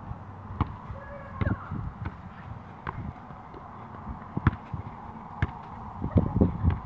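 Soccer ball being juggled: short dull thumps as foot, thigh and head touch the ball, about one a second, with a quicker run of touches near the end.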